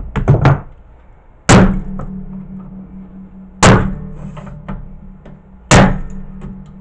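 Three heavy knocks about two seconds apart as a hand tool is driven into a CRT TV circuit board to pry an IC off, with a low ring hanging after each and a few lighter clicks near the start.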